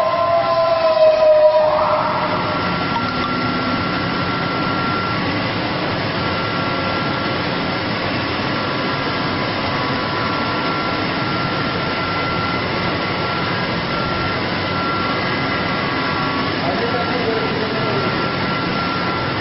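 Chiller pump motor starting up with a rising whine as it spins up. Within about two seconds it settles into a steady high running whine over a constant rushing hum.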